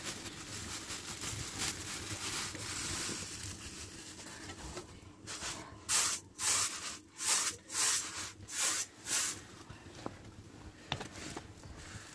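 Dry rice grains rustling as they are poured from a plastic bag onto a metal tray, then the grains tossed and shaken on the tray in a run of about eight swishes, roughly two a second.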